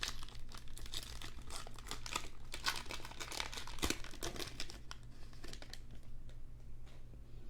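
Wrapper of a basketball trading-card pack being torn open and crinkled by hand: a run of irregular crackles that thins out over the last few seconds.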